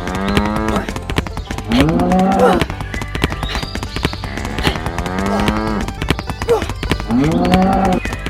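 Cow moos, four short calls in a repeating pattern, over background music with a quick clicking beat.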